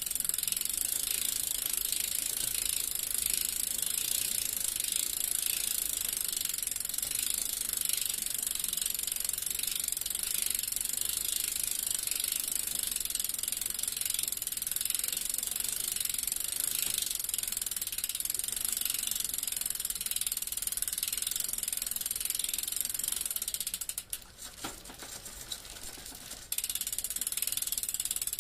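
Bicycle freewheel ticking steadily in rapid, fine clicks as the wheel coasts. The clicking drops away for a couple of seconds near the end, then starts again.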